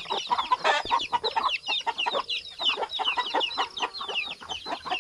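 A flock of young chickens peeping and clucking: many short, falling peeps, several a second, over lower clucks.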